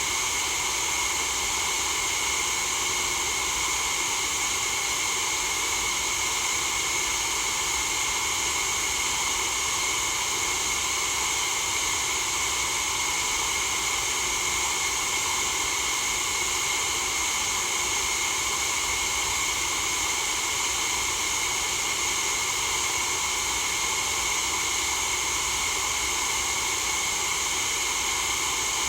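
White noise for sleep: a continuous, even hiss that never changes or breaks.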